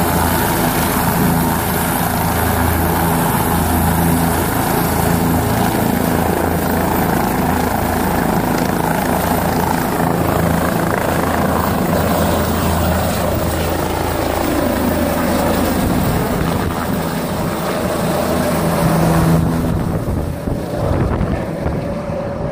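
Helicopter running close by, a loud steady rotor and engine noise with a low drone under it. It surges briefly near the end, then eases off a little.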